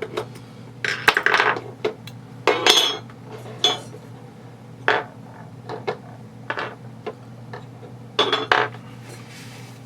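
Metal airsoft gearbox parts and tools being handled: scattered sharp clicks and short metallic rattles, loudest about a second in, near three seconds and near the end.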